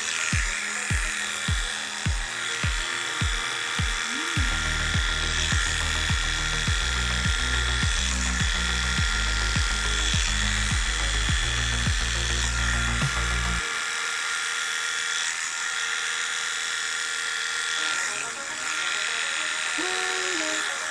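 Heiniger electric animal clipper running with a steady high buzz as it shaves a cat's fur. Background music with a bass beat plays over it and cuts off suddenly about 14 seconds in.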